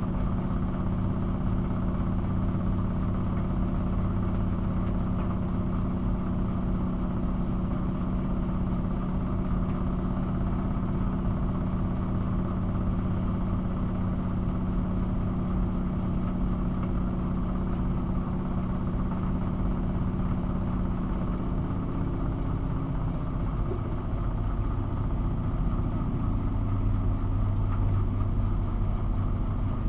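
Miele W 5873 WPS front-loading washing machine with its drum spinning at speed: a steady motor hum and whirr, the tone shifting about two-thirds of the way through.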